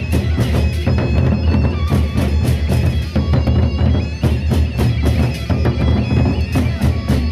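Gendang beleq, the Sasak marching gamelan, playing: large barrel drums beaten in a fast, dense rhythm with sharp metallic strikes over the top and a steady held reedy tone.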